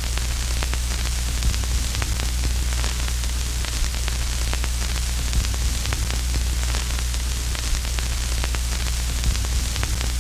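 Steady static hiss with a low hum underneath and scattered small crackles.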